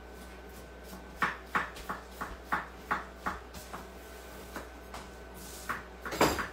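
Knife rough-chopping onions on a cutting board: a run of short, irregular knocks about three a second, with one louder knock near the end.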